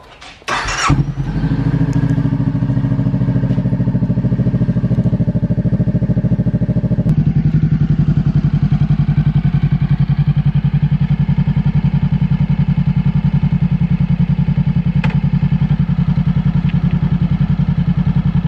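Honda CB500F's parallel-twin engine starting: a brief crank, catching about a second in, then idling steadily with an even, fast exhaust pulse.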